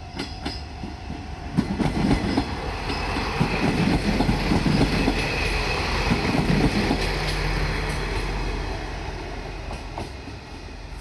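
JR Shikoku Series 1200 diesel railcar passing close by, its wheels clattering over the rail joints above the hum of its diesel engine. The clatter is loudest from about two to seven seconds in, then gives way to a steady low engine drone that fades.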